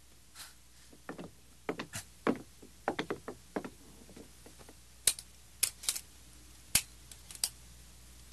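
Revolver being handled: an irregular run of sharp metallic clicks and clacks, about a dozen in all.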